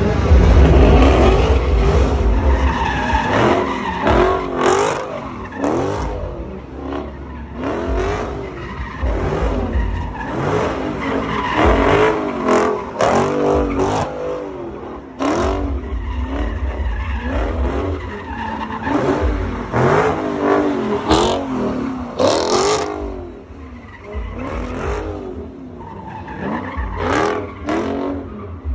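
A car doing burnouts and donuts, its engine revving up and down over and over while the tyres squeal and skid on the asphalt.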